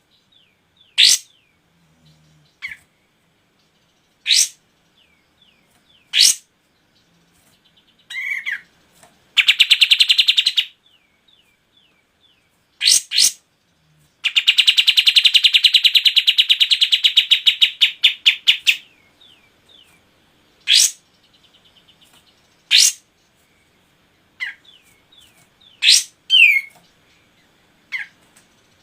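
Songbird calls from a kapas tembak and a canary: short, sharp sweeping calls about every two seconds, and two long, fast rolling trills, a brief one about nine seconds in and a longer one from about fourteen to nineteen seconds.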